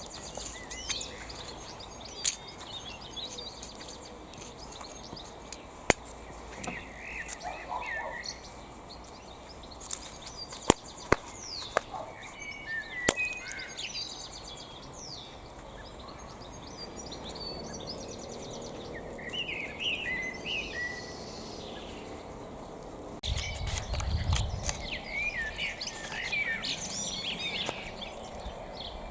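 Small birds chirping and singing in short repeated phrases, over steady outdoor background noise, with several sharp clicks or knocks scattered through and a brief low rumble about three-quarters of the way through.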